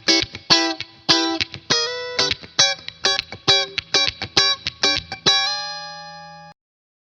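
Gibson Les Paul '58 reissue on its bridge pickup, played clean through a Bogner Shiva tube head and 2x12 cabinet: a quick run of picked single notes, then a final chord about five seconds in that rings out, fades and stops.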